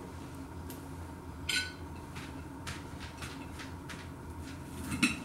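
Knife and fork clinking and scraping on a china plate while cutting into battered bites: a ringing clink about a second and a half in, lighter taps after it, and a sharper clink near the end. A steady low hum runs underneath.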